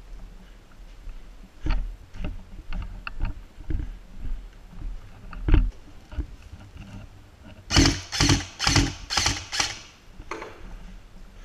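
Shuffling steps and gear knocks on gritty concrete, then five loud sharp mechanical clacks about half a second apart from an airsoft electric gun firing single shots.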